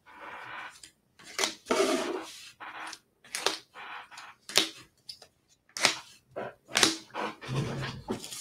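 Irregular clicks, taps and short rustles of trading cards and packaging being handled on a table, with a longer crinkly rustle about two seconds in.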